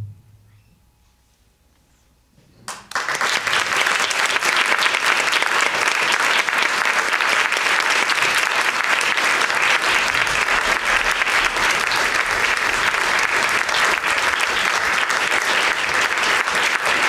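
Audience applauding: after a short hush, clapping breaks out about three seconds in and carries on steadily.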